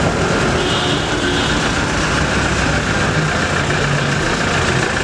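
Steady street traffic noise, with vehicle engines running close by.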